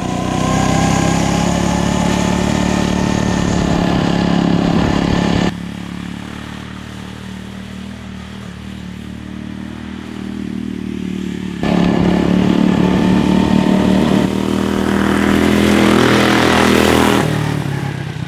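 Small single-cylinder go-kart engine running hard as the kart laps a lawn, loud and close for the first five seconds or so. It then drops suddenly to a quieter, more distant engine sound. Near 12 seconds it jumps back up, adds a rough rushing noise around 15 to 17 seconds, then fades.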